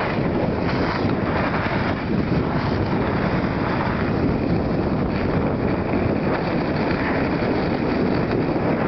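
Steady rushing wind noise on the microphone while skiing downhill, mixed with skis sliding over snow.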